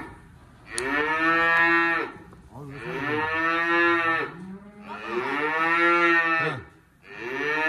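Young cattle mooing: four long, loud calls, each rising and then falling in pitch. The animal is calling for its mother after being separated from her.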